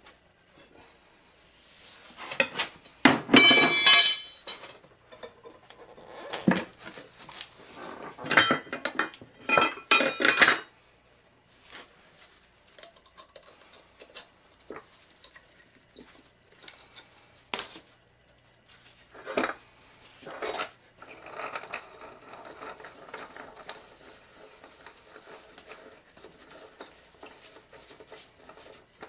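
Steel-on-steel clanking, scraping and ringing from a manual tire changer's mount bar and tool head levering a small mower tire's bead over its steel rim. The loudest ringing clanks come a few seconds in and again around ten seconds in, then a few sharp clicks and quieter scraping.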